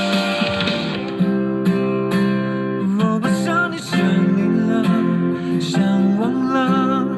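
A Mandarin pop song played through the EVASing Vintage portable Bluetooth speaker: strummed acoustic guitar chords, with a couple of brief sung notes.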